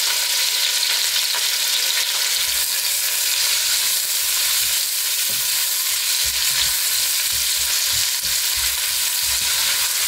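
Sliced onions sizzling in hot oil in a stainless steel pot, a steady hiss. From about halfway through they are stirred with a silicone spatula, adding soft knocks and scrapes.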